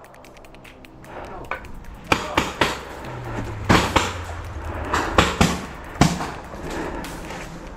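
Magfed paintball marker firing in short bursts of two and three sharp shots, about nine shots in all over four seconds.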